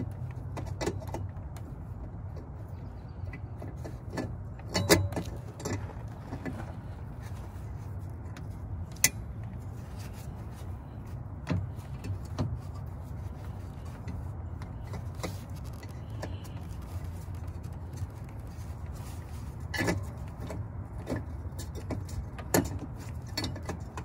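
Scattered light clicks and knocks of a new 9003 halogen bulb and its plastic fittings being handled and seated in the back of a Honda CR-V headlight housing, a few sharper clicks among them, over a steady low hum.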